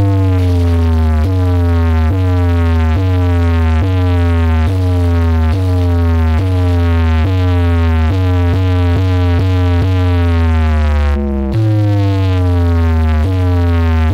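Electronic remix test track played loud through a stacked DJ speaker box system: a heavy bass note under repeated falling synth sweeps, about one a second, with a brief break about eleven seconds in.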